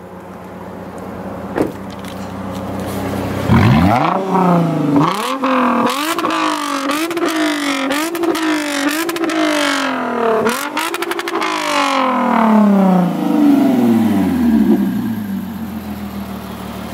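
Lexus IS350's 3.5-litre V6, heard from behind at the exhaust, idling and then revved hard. It runs through a quick string of short blips, a little under two a second, then one more rev, and falls slowly back to idle.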